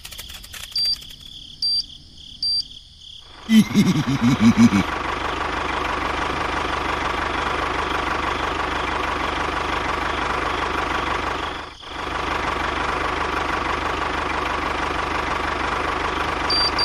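Three short high beeps about a second apart, then a brief loud burst with a wavering pitch. After that a tractor engine runs steadily, with a short dip about twelve seconds in.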